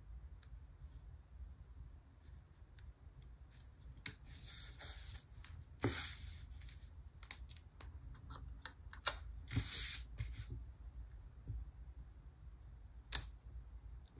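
Scissors snipping sticker sheets and stickers being handled: scattered sharp clicks with a few short hissing swishes, the longest about four to five seconds in and again near ten seconds.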